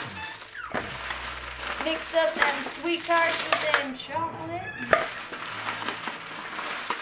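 Hands rummaging through wrapped candy in a cauldron, the wrappers crinkling and rustling, with one sharp click about five seconds in.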